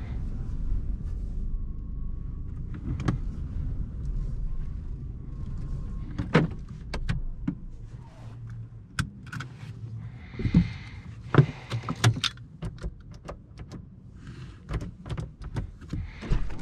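Inside the cabin of a 2020 Volkswagen Jetta 1.4 TSI: a low engine and road rumble, with a faint steady high tone, that quiets about six seconds in. After that come a run of irregular sharp clicks and knocks, like keys and door or cabin controls being handled.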